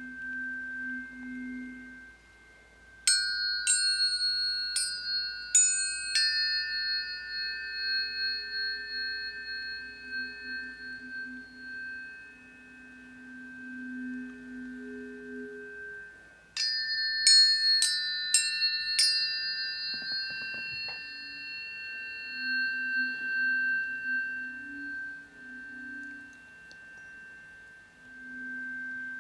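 Tuning forks struck one after another, each strike a sharp click followed by a long, clear ringing tone. Two runs of five strikes come about thirteen seconds apart, their tones overlapping and slowly fading, with a soft low tone swelling and fading beneath.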